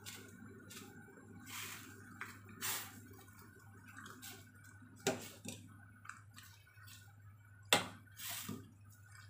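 Steel ladle stirring tofu and fish balls in broth in a stainless steel pot: liquid sloshing and swishing, with a few sharp clinks of the ladle against the pot, the loudest about five seconds in and near the end.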